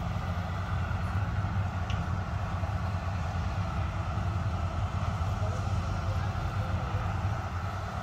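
Vardhman tracked combine harvester running steadily while it harvests paddy: a constant low engine drone with a hum from the machinery over it.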